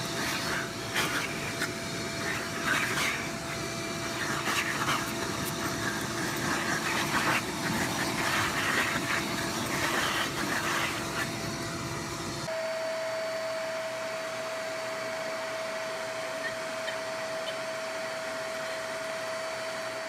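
Vacuum cleaner running with its hose nozzle held close, a steady motor hum with many short, irregular sharp noises over it. About twelve seconds in it cuts to another vacuum's smoother, steady hum with a single clear tone.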